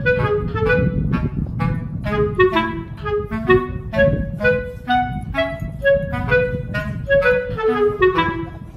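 Background music: a quick melody of separate notes, several a second, over a steady low accompaniment.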